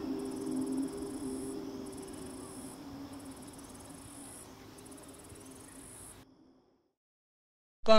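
Insects chirring in high, repeated bursts about a second long, over a low sustained drone of film score. Both fade away into silence about six seconds in, and loud music starts right at the end.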